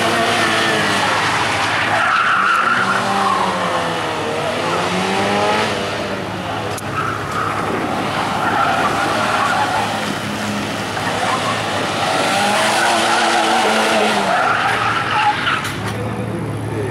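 Peugeot 205 Rallye's four-cylinder engine revving hard up and down between corners, with tyres skidding as the car slides around the cones. Near the end the engine drops to a steady idle.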